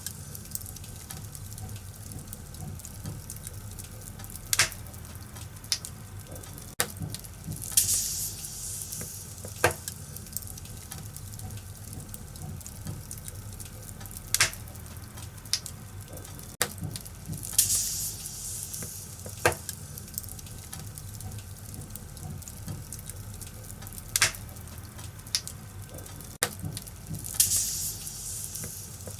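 Wood fire crackling in a fireplace, with sharp scattered pops and a brief burst of hissing about every ten seconds over a steady low rumble.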